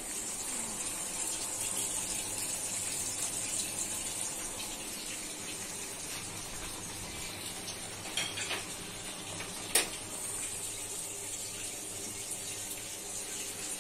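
Pot of instant noodles boiling on a gas stove, giving a steady bubbling hiss, with a sharp click about ten seconds in.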